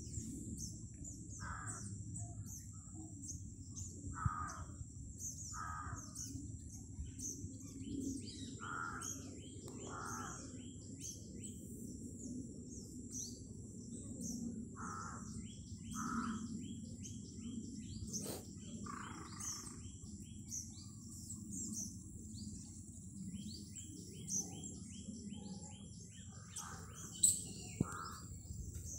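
Crows cawing on and off, about ten single caws, over steady chirping of small birds and a low background rumble.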